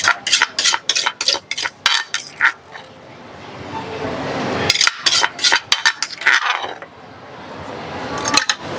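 Metal spoon clinking and scraping against the salad mortar and plate in quick runs of taps as corn papaya salad is scooped out and served; two bursts of clinks, a short pause, and a few more near the end.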